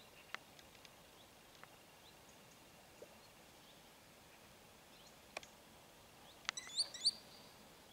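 Quiet outdoor background with a few faint scattered clicks, then a quick series of high, rising bird call notes near the end.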